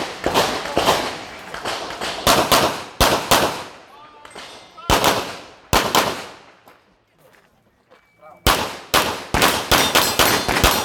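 Handgun shots fired in fast strings, typical of a shooter running an IPSC course of fire. There is a pause of about two seconds around the middle, then another quick run of shots.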